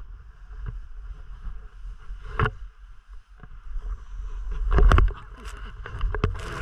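Wind rumbling on the microphone, with several short scraping noises over it, the loudest about five seconds in.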